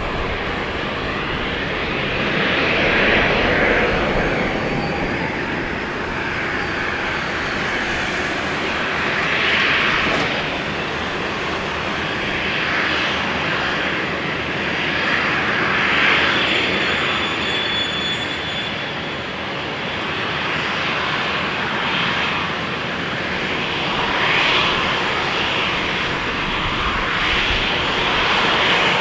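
Jet engines of an Embraer E190 airliner running, a steady rushing noise that swells and eases every few seconds, with a faint high turbine whine in the middle.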